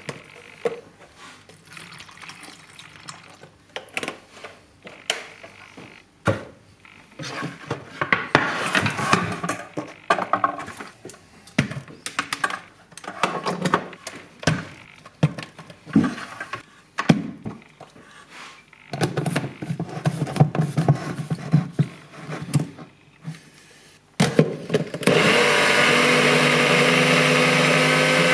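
Almond milk poured from a carton into a blender cup of greens, followed by knocks and clatter as the cup and blade are handled; about 24 seconds in, a NutriBullet blender motor starts and runs steadily, blending.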